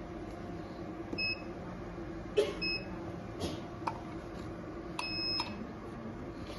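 Electronic beeps from a laser beauty machine's control unit as it switches lasers: two short high beeps, then a longer one about five seconds in. A few sharp clicks fall between them, and a steady low hum runs underneath.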